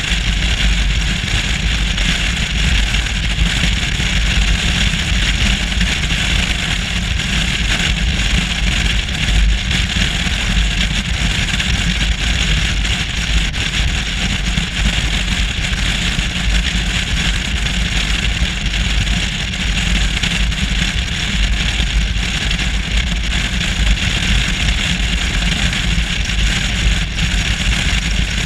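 Touring motorcycle at steady highway speed, heard from the rider's position: an even rush of wind and road noise over a constant low rumble, with wind on the camera's microphone.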